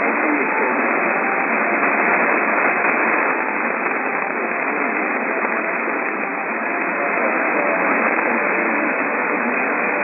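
Loud, steady static on an AM radio signal, with the sound cut off sharply above the narrow AM band; a faint voice is barely heard under the noise.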